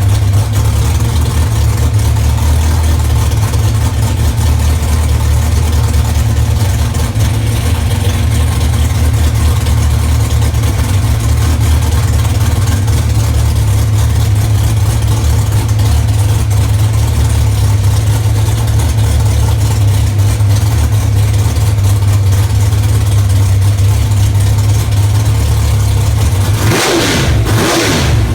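Ex-Pro Stock Dodge Stratus's 604-cubic-inch Mopar Predator V8 running loudly at a steady idle. Near the end a quick rev rises and falls back to idle.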